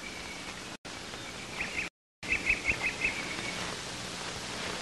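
Faint high chirps, a quick run of them about two seconds in, over steady background hiss; the sound cuts out completely twice for a moment.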